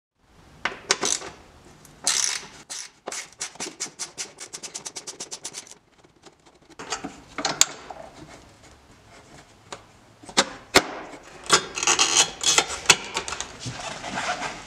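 A hooked metal tool clicking, knocking and scraping against the exhaust system as the rubber exhaust hangers are pried off their mounts. About three seconds in there is a run of quick, even clicks, about nine a second.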